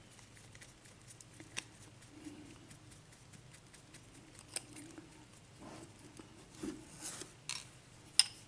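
Small screwdriver backing screws out of a brass Assa lock cylinder: faint, scattered metal clicks and scrapes, with a few sharper clicks near the end.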